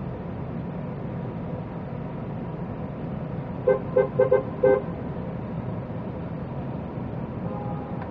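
A car horn gives a quick rhythmic run of about five short toots about four seconds in, over the steady low rumble of slow traffic.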